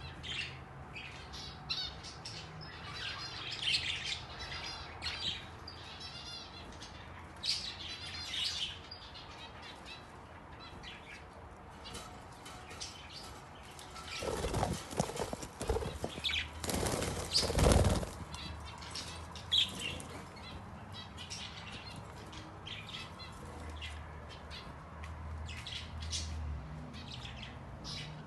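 Budgerigars chirping and chattering, with a loud flurry of wing flapping about halfway through.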